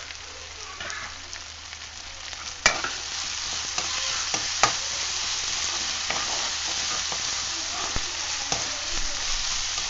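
Chopped onions sizzling in oil in a non-stick kadai while a steel spatula stirs them, clicking and scraping against the pan. About three seconds in, the stirring starts with a sharp knock and the sizzle gets louder; another knock follows about two seconds later.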